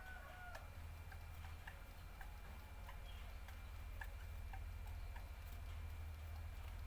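Faint, regular ticking, about two ticks a second, over a steady low hum. The tail of a rooster's crow fades out in the first half second.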